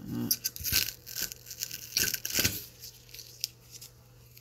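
Blue painter's tape being peeled off paper: several short ripping sounds, the loudest about two seconds in, quietening after about three seconds.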